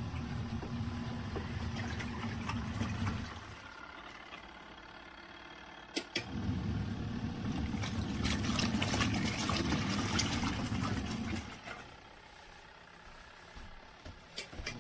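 Small twin-tub portable washing machine's motor running with water sloshing in the tub. It stops after about three seconds, starts again with a click at about six seconds, and stops again at about eleven seconds.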